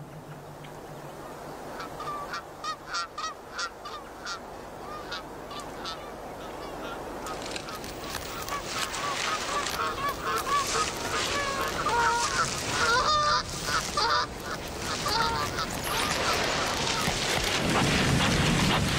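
A run of short animal calls, several a second, starting about two seconds in and growing denser and louder after about seven seconds, with a rushing noise building near the end.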